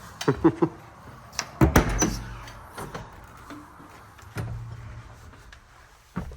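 A series of metal clunks and knocks, with a short squeak near the start, from a tractor's door or service panel being shut and latched.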